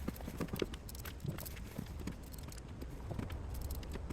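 Irregular clicks and light knocks, like hand tools and small parts being handled, over a steady low hum.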